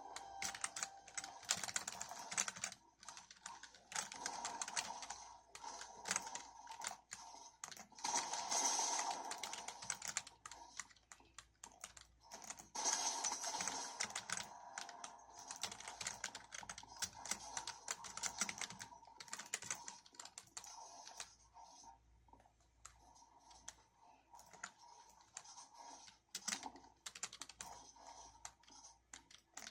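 Typing on a Geodamer 65% mechanical keyboard: runs of rapid keystroke clicks broken by short pauses, with the keystrokes thinning out in the last third.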